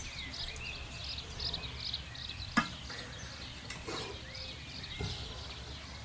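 Small birds chirping and twittering over a low background hum, with one sharp click about two and a half seconds in.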